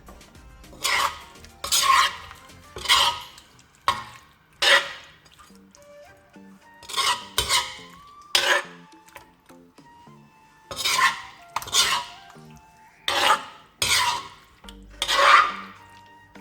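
A spoon scraping and scooping through a pot of thick chicken curry, about a dozen separate strokes at uneven intervals.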